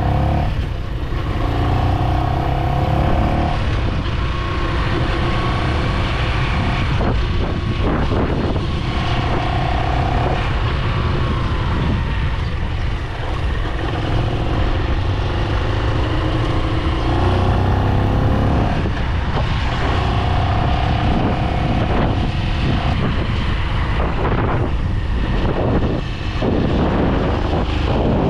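Small motorcycle's engine running while riding, its pitch rising and falling with the throttle and gear changes.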